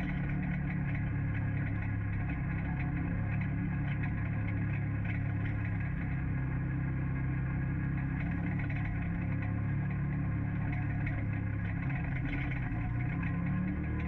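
Off-road UTV engine running at a steady speed, shifting in pitch near the end.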